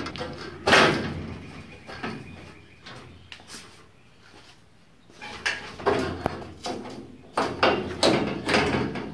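Steel replacement body panel on a 1966 Ford Bronco clanking and scraping against the body as it is worked into place. There is a sharp clank just under a second in, a few lighter knocks, a short lull, then a run of clanks in the last few seconds.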